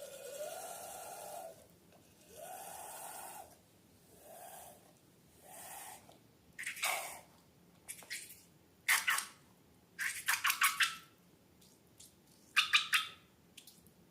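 Slime being worked by hand: a few soft, wet swelling sounds, then from about halfway in, sharp clusters of squelching pops and crackles.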